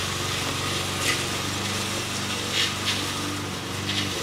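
A steady low motor hum, with three faint brief rustles on top.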